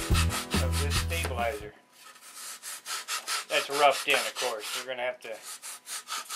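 Sandpaper rubbed by hand along the edge of a wooden model-airplane tail piece, in quick short strokes, several a second, rounding the edge. A loud low hum plays under the first stretch and cuts off suddenly under two seconds in.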